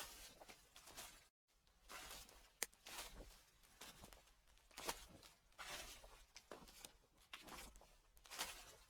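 Footsteps crunching and rustling through dry fallen leaves at a slow walking pace, about one step a second, with a brief moment of dead silence just over a second in.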